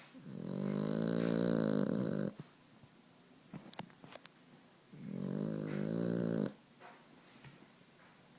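Sleeping puppy snoring: two long, pitched snores, the first about two seconds long and the second starting about five seconds in, with quiet pauses between breaths.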